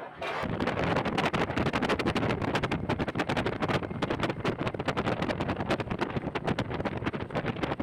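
Wind buffeting the microphone of a riding motorcycle, a dense rushing noise over road and engine sound that gets louder about half a second in.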